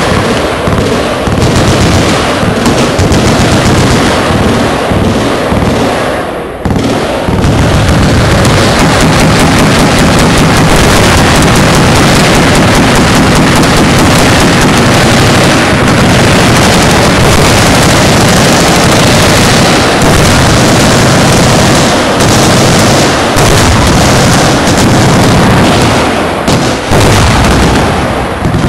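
Many machine guns firing at once in dense, continuous automatic bursts, so loud and steady that the recording sits near its maximum throughout. The fire slackens briefly about six seconds in.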